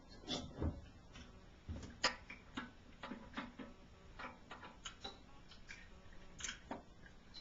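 Irregular light clicks and knocks, about a dozen, from Zippo lighters being handled and set down, with one heavier knock at the start and another about two seconds in.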